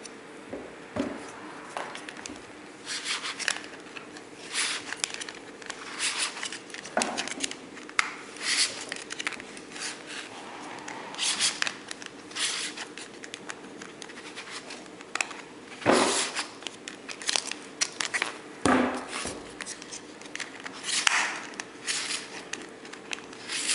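Irregular scraping and clicking strokes from a rebuilt mechanical part being worked by hand, over a steady low hum.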